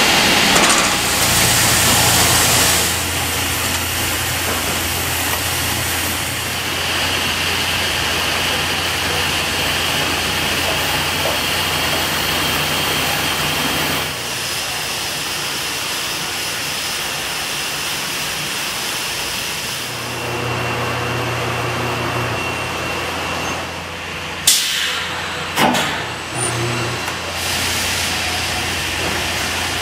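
Textile yarn-winding and warping machinery running: a steady mechanical hum with a hiss of spinning yarn, changing in level from shot to shot, with a few sharp clacks near the end.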